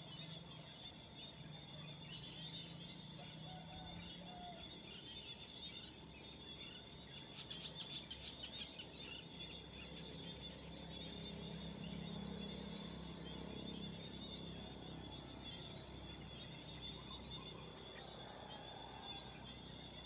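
Faint early-morning rural ambience of birds calling and chirping, over a steady high-pitched whine. About eight seconds in comes a rapid run of sharp, high bird notes, and a low hum swells and fades around the middle.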